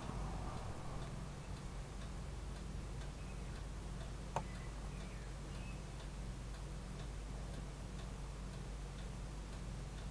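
Steady low electrical hum with faint, even ticking about twice a second, the self-noise of an outdoor nest webcam's audio. One sharp click comes about four seconds in, and a few faint bird chirps come and go.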